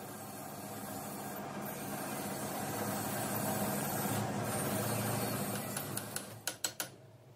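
Metal lathe running with a steady hum while it turns a hydraulic cylinder in its four-jaw chuck, then winding down about six seconds in. A few sharp metal clicks follow as it stops.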